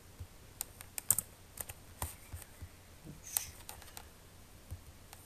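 Computer keyboard keystrokes and mouse clicks: a dozen or so sharp, irregularly spaced taps as digits are typed into a form designer's properties and buttons are selected.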